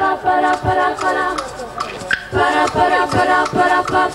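A girls' vocal group singing in close harmony in short, rhythmic phrases, over a low, steady beat.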